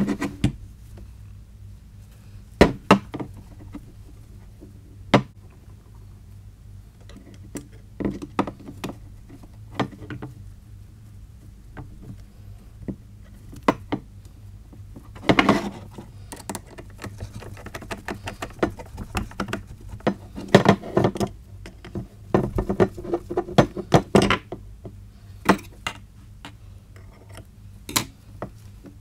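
Handling sounds from wrapping a motorcycle exhaust pipe in woven fibreglass heat wrap: scattered knocks and clunks of the metal pipe against the workbench and rustling of the wrap, coming thicker in the middle, over a steady low hum.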